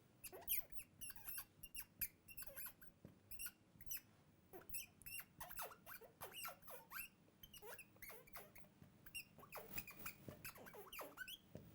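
Faint, rapid squeaking and chirping from a small animal: dozens of short high notes, each falling in pitch, coming in quick runs.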